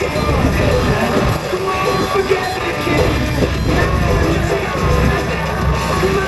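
A song playing on an FM radio station, steady and loud.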